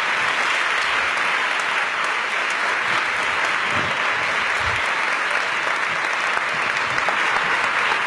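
Large audience applauding in a hall, steady sustained clapping.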